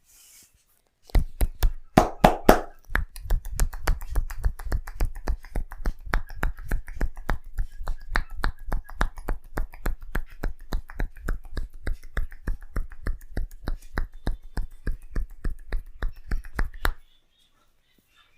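Tapping head massage: hands strike the head in a fast, steady beat of sharp claps and slaps, starting about a second in and louder for the first couple of seconds. It stops suddenly near the end.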